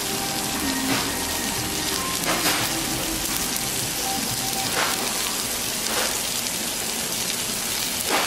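Shrimp, squid and pork sizzling steadily on a hot Korean barbecue grill plate, with a few light clicks of metal tongs turning the shrimp.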